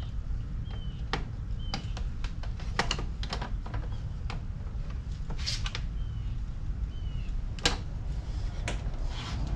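Irregular clicks and taps of a screwdriver and copper wire being worked into a breaker panel's ground bar. A few short, high chirps that fall slightly in pitch come every second or so over a steady low hum.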